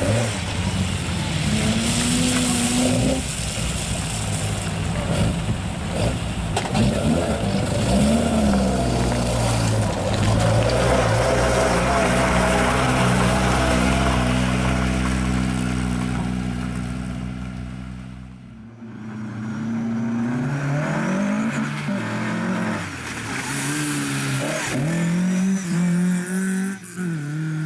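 Lada 2107's four-cylinder engine driven hard, its revs rising and dropping again and again, then held high and steady for several seconds. About two-thirds of the way through it fades away, then comes back with more revving.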